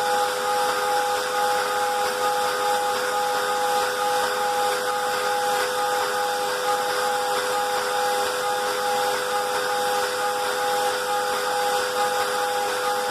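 Moore jig grinder's spindle running a CBN grinding wheel as it rough-grinds a pocket: a steady whine of several tones over a hiss, one tone pulsing slightly. The wheel is taken out the top of the pocket so the grinding dresses the buildup off its edges.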